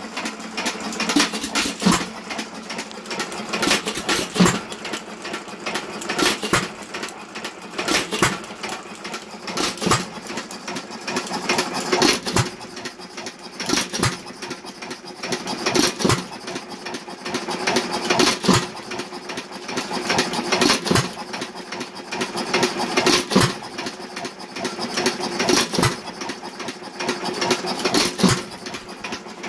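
Associated 1.75 hp air-cooled hit-and-miss engine running: a sharp firing stroke about every two seconds, with a fast mechanical clatter as it coasts between firings. The governor is skipping power strokes to hold its speed, the normal hit-and-miss way of running.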